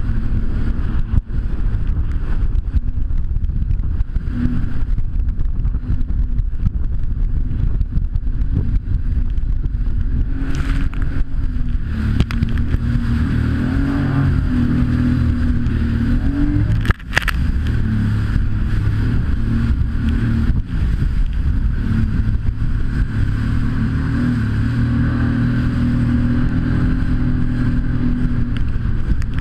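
Jet ski engine running under way, its pitch wavering up and down with the throttle over a steady low rumble. One brief knock comes a little past the middle.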